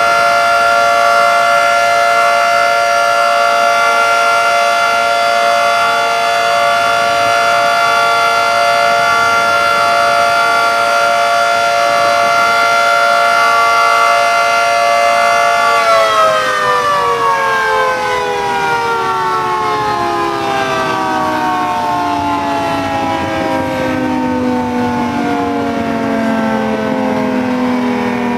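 Federal Signal 2T22 dual-tone outdoor warning siren sounding a steady chord on its monthly test. About halfway through it is switched off and winds down, its pitch falling slowly.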